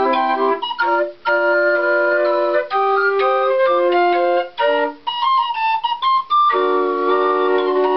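The Callioforte, a homemade pipe organ built mostly from plumbing parts and wire, played from its keyboard: chords of several steady pipe tones under a moving melody, in short phrases broken by brief gaps.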